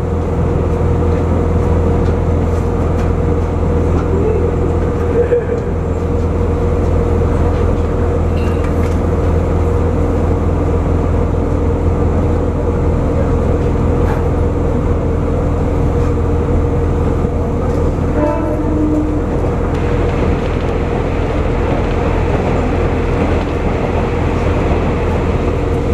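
Diesel railcar running along the line, heard from inside the carriage: a steady low engine drone with constant hum tones over the rumble of the wheels.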